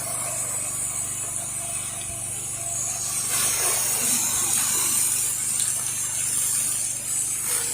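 Pressure washer running steadily, with the hiss of water spray building again from about three seconds in.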